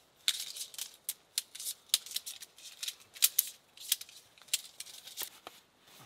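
Crisp rustling, crinkling and clicking of camping gear being handled while packing up camp: nylon, cord and dry bags. It comes as an irregular run of sharp crackles that thins out near the end.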